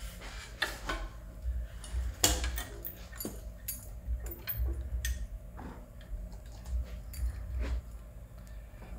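Scattered clicks and knocks from handling an electric scooter hub motor and its solid rubber tire in a metal bench vise as the wheel is turned and repositioned, the loudest knock about two seconds in, over a low rumble.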